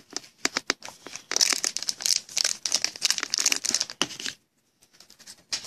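A few light clicks, then the foil wrapper of a Panini Prizm jumbo card pack crinkling in the hand for about three seconds as it is picked up and handled, stopping about four seconds in.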